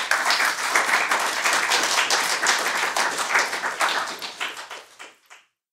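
Audience applauding: dense clapping from many hands, fading near the end and then cutting off abruptly.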